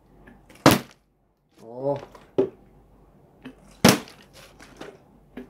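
A plastic water bottle, partly filled with water, flipped and landing on a hard floor: two sharp smacks about three seconds apart, with a few lighter knocks near the end.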